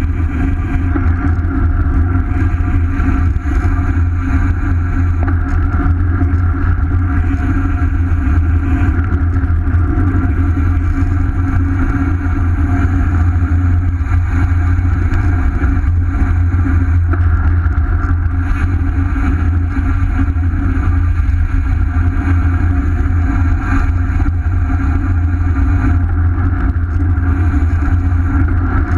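Steady, loud wind rumble buffeting a bicycle-mounted action camera's microphone while riding at speed, with tyre and road noise underneath.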